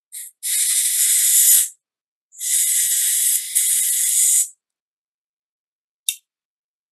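A can of compressed-air duster spraying in hissing blasts to blow out pistol parts during cleaning: a brief puff, two long blasts of about one and a half and two seconds, then a short puff near the end.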